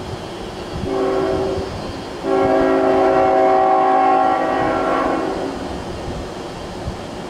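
CN diesel locomotive's air horn sounding a short blast, then a long, louder blast that fades away, as the train nears a grade crossing. Under the horn runs the low rumble of the approaching train.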